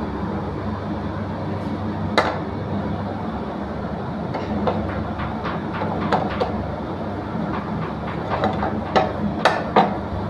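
Fried rice being tossed and stirred in a frying pan: the spatula clacks and scrapes against the pan again and again, with the sharpest knocks near the end, over a steady low kitchen roar.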